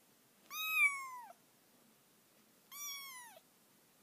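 Kitten meowing twice: two high-pitched meows about two seconds apart, each under a second long and dropping in pitch at the end, the first one louder.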